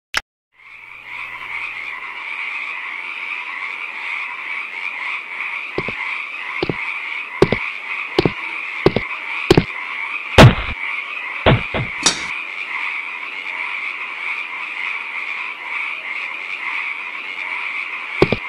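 A steady chorus of frogs croaking starts about half a second in and carries on throughout. Over it, about ten sharp knocks come between roughly six and twelve seconds, like footsteps, the loudest near ten seconds.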